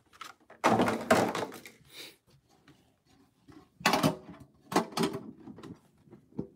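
Empty metal Pokémon TCG collector's tins being handled: a lid pressed onto a tin and the tins set down and stacked, giving a few hollow thunks and scrapes of tin on tin, the loudest about half a second in and again about four seconds in.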